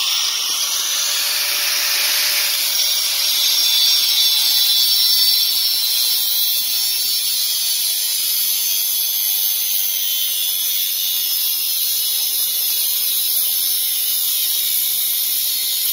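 Corded angle grinder running at full speed with its disc cutting into the metal housing of a fuel pressure regulator and filter: a steady, loud, high-pitched whine and grinding hiss that does not let up.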